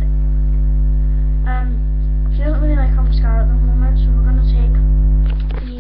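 Loud, steady electrical mains hum picked up by the webcam's microphone. It drops away near the end.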